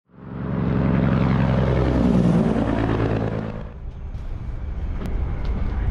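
A loud engine fades in and passes by, its pitch shifting as it goes past, then dies away after about three and a half seconds. A steady low rumble is left after it.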